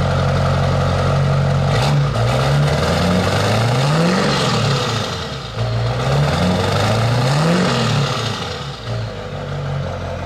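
2003 GMC Sierra's Duramax V8 turbo-diesel idling through a new MagnaFlow 5-inch exhaust, then revved twice, each time rising in pitch and falling back, before settling to idle near the end.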